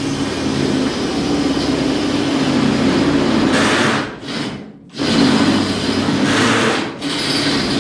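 Handheld electric power tool running under load, its motor pitch wavering as it bites into the work. It stops about four seconds in, starts again about a second later, and briefly eases off near the end.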